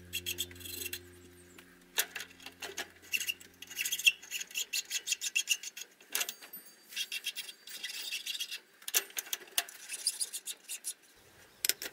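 Hand file rasping across a small cast aluminium part clamped in a bench vise, in runs of quick back-and-forth strokes with a pause about halfway through. Background music with a low steady chord fades out in the first few seconds.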